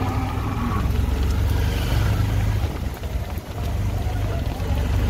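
Steady low engine rumble with wind buffeting the microphone, as heard riding in a moving vehicle.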